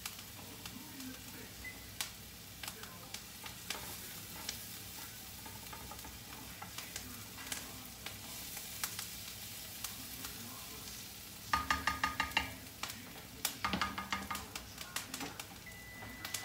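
Chopped shallot and thyme sprigs sizzling in olive oil in a frying pan, with scattered pops. About two-thirds of the way through, two short runs of quick, rattling strokes as the pan is stirred.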